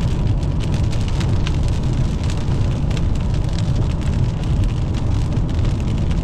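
Inside a moving car: steady low road and engine rumble, with raindrops striking the roof and windshield as scattered sharp ticks.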